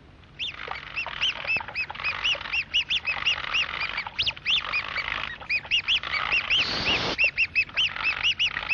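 Cartoon squeaking sound effect: a rapid string of short, high chirps, each rising and falling in pitch, several a second, with a few brief pauses.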